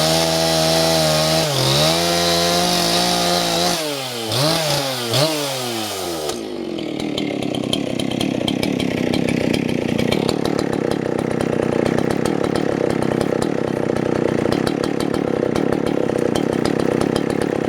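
Husqvarna 268 XP two-stroke chainsaw running at high revs, its pitch dipping twice under load, then dropping and climbing again in a few quick revs. About six seconds in the sound changes to a steady rattling noise with rapid clicks and no clear pitch.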